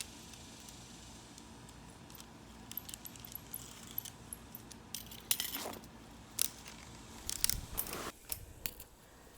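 Scattered light clicks and rattles as the window screen frame and spline are handled while loose spline is pressed back into its groove.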